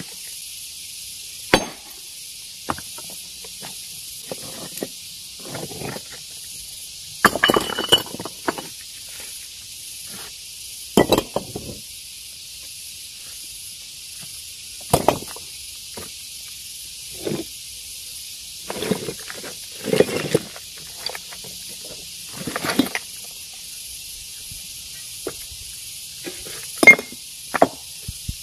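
Rock being broken by hand with a hammer: sharp clinking knocks of metal on stone and cracking rock, coming irregularly every second or few, over a steady high hiss.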